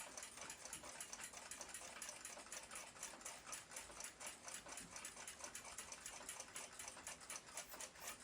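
Faint, rapid, even mechanical ticking, about five clicks a second.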